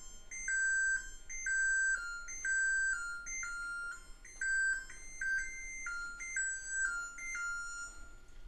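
An electric range's control-panel timer plays its end-of-timer alert. A short electronic chime tune steps from a high note to a held lower note, over and over for about seven and a half seconds, signalling that the countdown has reached zero.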